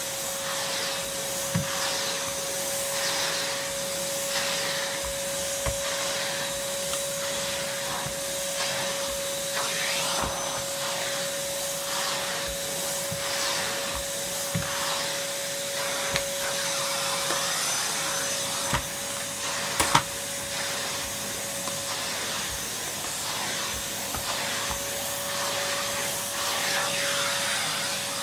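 Numatic Basil NB200 cylinder vacuum cleaner running at full speed with a steady whine. Its suction hiss swells and fades as the floor tool is worked back and forth, with a few sharp knocks, the loudest about twenty seconds in.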